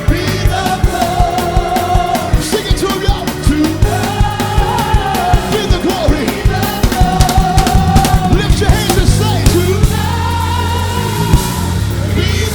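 Live gospel worship music: a band with drum kit and bass plays under sung, held notes, with regular drum hits throughout.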